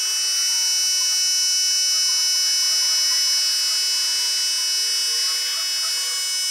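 Small electric air compressor running steadily with a high-pitched whine.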